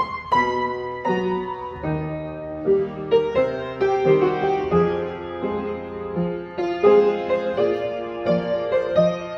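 Upright piano played live as ballet-class warm-up accompaniment, with low bass notes alternating with chords on a steady beat.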